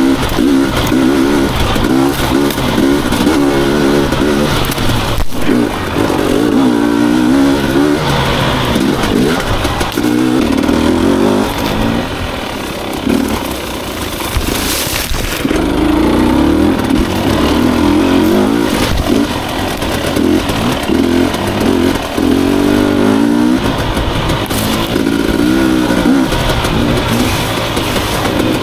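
Husqvarna TE 250i single-cylinder two-stroke enduro motorcycle engine being ridden hard on rough trail, the revs rising and falling over and over as the throttle is blipped.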